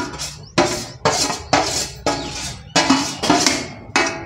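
Metal spoon clanking and scraping against a thin metal kadhai, about two sharp strikes a second, each ringing briefly, as granular churma is stirred into sugar syrup.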